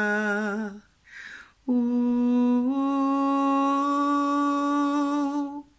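A woman's wordless sung toning in the light-language style: a held note ends with a wavering vibrato, she draws an audible breath, then she sings one long held vowel that steps up slightly in pitch about a second in and holds steady.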